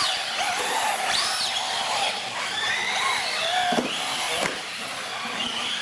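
Electric motors of several radio-controlled UTV race trucks whining at full throttle, the pitch sliding up and down as they race down the track.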